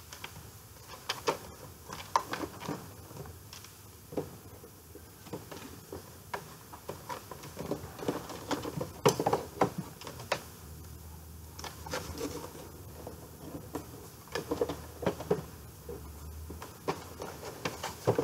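A VHS cassette and its cardboard sleeve being handled, with irregular clicks, taps and rustling of plastic and card.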